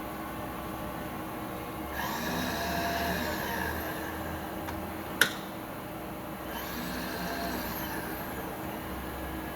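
Milling machine running with a steady hum. Twice it grows louder for about two and a half seconds, with a whine that bends in pitch, and a single sharp click comes about halfway through.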